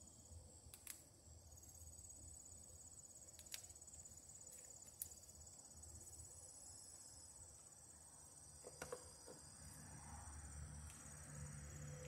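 Faint, steady high-pitched insect trilling, with a few light clicks from a plastic outdoor outlet cover being handled.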